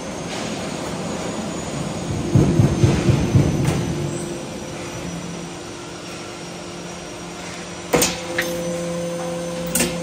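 Perforated cable tray roll forming machine running with a steady hum, rattling louder for about a second and a half a couple of seconds in, then two sharp knocks near the end.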